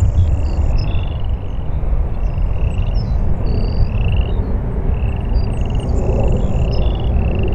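Low, steady rumble of the departing Boeing 747-400's four GE CF6 turbofans, with short high chirps repeating about twice a second over it.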